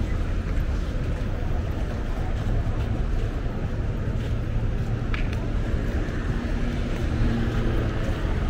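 Night street ambience: a steady low rumble of traffic, with a car engine humming close by for a moment near the end.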